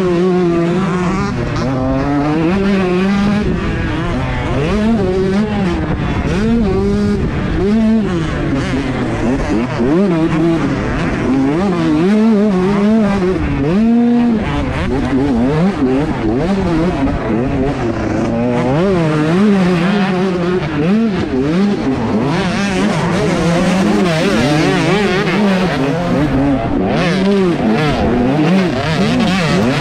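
125cc two-stroke motocross bikes racing, their engines revving up and down constantly with throttle changes and gear shifts.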